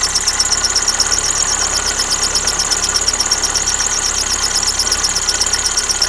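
Lada Kalina engine idling, with the alternator belt giving a fast, even, high-pitched chirping squeal, many chirps a second. The owner puts it down to the worn belt rubbing against the side flange of a wobbly crankshaft pulley, pushed there by a misaligned tensioner roller.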